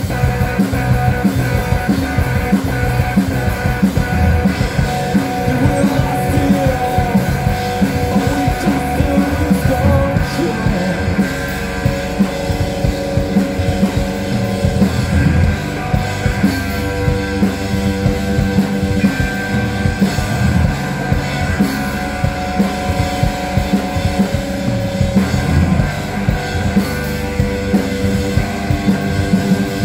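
Live rock band playing on stage through a large PA: electric guitars and a drum kit going steadily.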